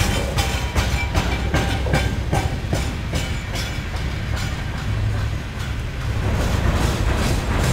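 Freight train's cars rolling past, wheels clicking over rail joints about three times a second over a steady low rumble.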